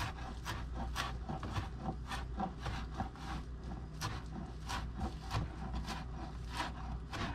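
Chef's knife chopping cilantro on a plastic cutting board: steady, evenly spaced knocks of the blade on the board, about three a second.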